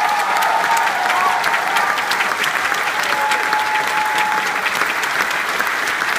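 Theatre audience applauding, steady and dense, joined by the cast on stage.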